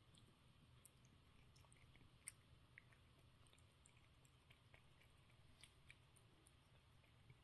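Cat licking and chewing food from a bowl: faint, irregular small wet clicks of tongue and teeth, with one sharper click a couple of seconds in.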